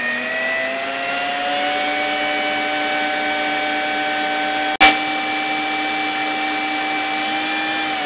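Electric stand mixer running at speed, its beater creaming margarine in the bowl. The motor whine rises slightly over the first two seconds, then holds steady, with one sharp click about five seconds in.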